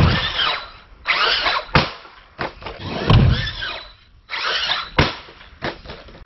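Brushless electric motor of a Traxxas RC monster truck whining in four short throttle bursts, its pitch rising and falling with each. A few sharp knocks fall between the bursts as the truck lands from ramp jumps.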